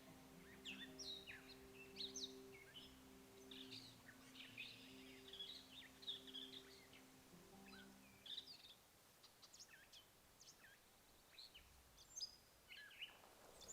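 Faint songbirds chirping and trilling, many short calls throughout. Soft background music of sustained low notes underneath stops about two-thirds of the way through.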